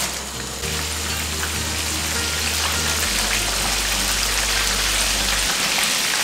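Breaded chicken pieces deep-frying in a pan of hot oil: a steady, dense crackling sizzle. Low background music notes change pitch underneath.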